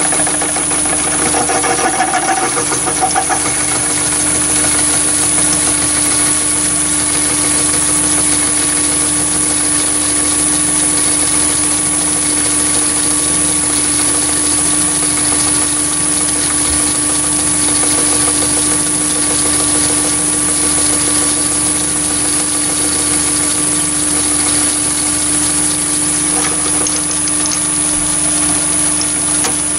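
Chinese mini lathe running steadily while a half-inch twist drill in the tailstock bores deeper into solid brass bar. The machine gives a constant high whine over a steady hum, with some rougher cutting noise in the first few seconds.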